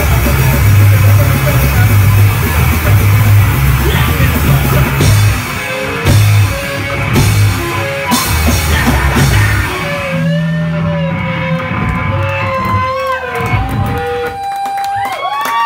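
Live rock band playing loud: distorted electric guitar, bass guitar and drum kit. About five seconds in the full playing breaks up into separate drum hits, and in the second half it thins to a few long, ringing electric guitar notes that bend and glide in pitch as the song winds down to its end.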